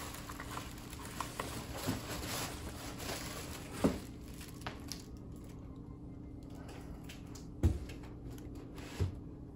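Large cardboard TV carton being slid up off the set, cardboard rubbing and the plastic bag around the TV crinkling, with a few soft knocks, the loudest about eight seconds in.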